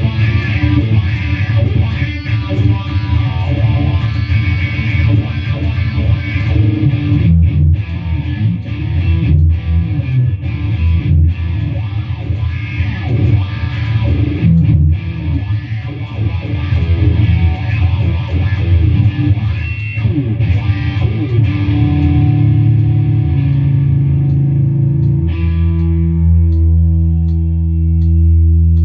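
Stratocaster-style electric guitar played through an effects unit: busy riffing with short breaks, then long held notes ringing on steadily over the last several seconds.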